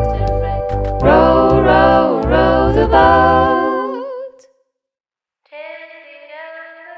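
Band's song ending with sung vocal harmonies over a bass line, the voices holding wavering notes, breaking off about four and a half seconds in. After a second of silence, a quieter, thinner melody of held notes without bass begins.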